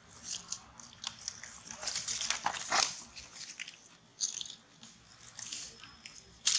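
Baby macaques chewing and pulling at leaves: a run of short crackling, crunching sounds, busiest about two to three seconds in.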